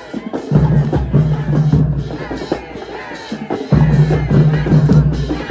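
Marching band playing: the drumline hits a steady beat while deep low-brass notes are held in stretches and then drop out.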